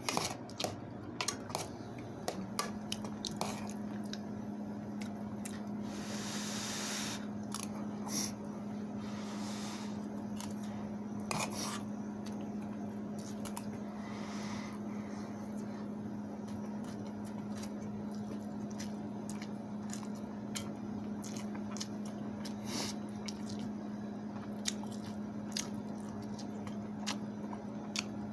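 Close-up eating sounds: wet squishing and chewing, with sharp clicks of a spoon against the rice pot and the bowl. A steady low hum comes on about two seconds in and holds.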